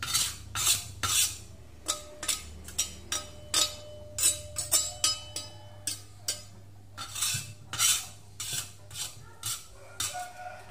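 Metal spoon scraping and tapping against a stone mortar as ground chilli spice paste is scooped out, in repeated short strokes about two a second.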